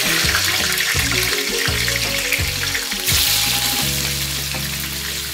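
Diced raw potatoes going into hot oil in an electric skillet, the oil sizzling hard as they hit it, with a fresh swell of sizzle about three seconds in as another handful goes in.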